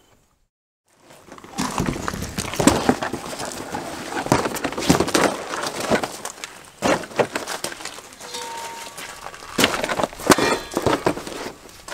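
Irregular knocks, scrapes and rustles of handling: a flattened cardboard box laid on a gravel drive and a black steel tow hitch set down on it, with a cluster of louder knocks about ten seconds in.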